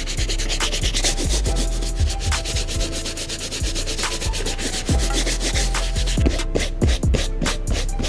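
Medium-bristle brush scrubbed rapidly back and forth over the suede upper of an Air Jordan 12, a fast, rhythmic scratchy rubbing that breaks into distinct strokes, about four or five a second, near the end. This is the suede nap being reset after cleaning.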